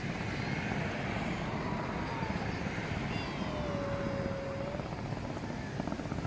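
Fireworks display: a steady dense rumble and crackle, with a few faint thin whistles sliding slowly in pitch.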